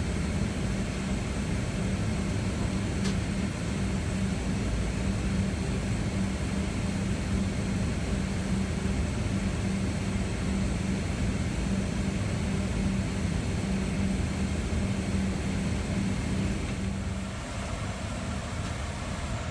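Steady cabin noise of a Boeing 777-200ER during pushback: an even rush of air with a constant low hum. It eases slightly about 17 seconds in.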